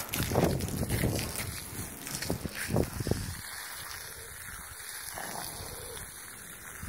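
Water from a garden hose splashing onto a steel plate, rinsing off acid. A few short bumps and rustles in the first three seconds, then a quieter steady hiss of water.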